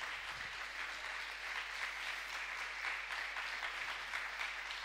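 Congregation applauding steadily and fairly faintly, a dense patter of many hands.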